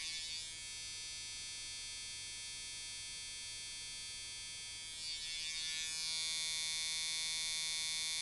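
Sharpz Microdial coil tattoo machine with Wes coils, set up as a liner, running at 6 volts at about 159 cycles a second: a steady, even electric buzz, described as pretty relentless. It is fainter for a few seconds in the middle, then louder again.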